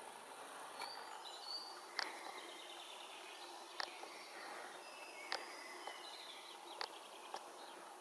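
Quiet woodland ambience: a faint steady hiss with distant birds calling in short high whistles and trills, and several sharp clicks spaced through it.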